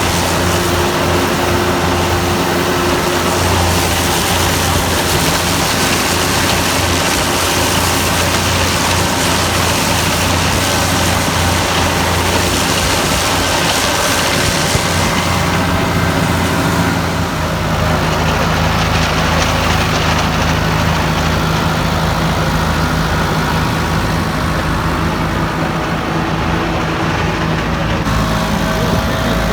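Tractor engine running steadily while working a hay field, with a steady drone that shifts in tone about halfway through.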